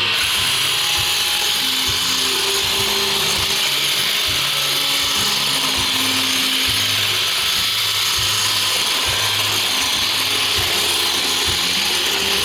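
iRobot Roomba Discovery SE robot vacuum running its cleaning cycle: the vacuum motor and brushes make a steady, high hissing whir at an even level.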